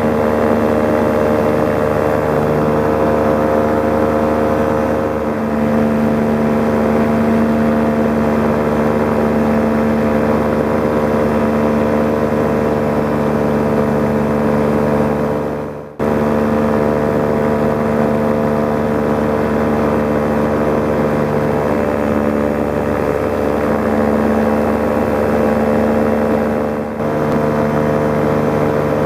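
Paramotor engine and propeller running steadily in flight, holding a nearly constant pitch. The sound fades out briefly about halfway through and comes straight back.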